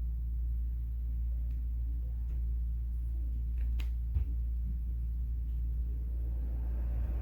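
Dreo Cruiser Pro tower fan running steadily, heard as an even low rumble of moving air, with a few faint clicks around the middle.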